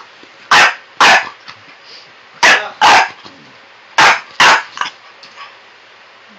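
French bulldog puppy barking: six loud, sharp barks in three quick pairs, with a fainter yap after the last pair.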